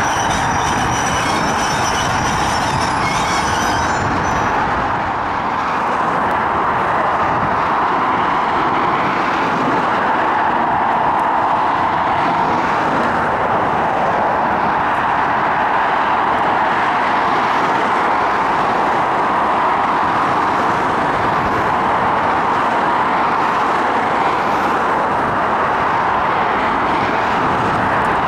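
Steady road traffic noise from a busy multi-lane road beside the railway. During the first four seconds or so it is overlaid by high-pitched railway wheel squeal, which stops abruptly.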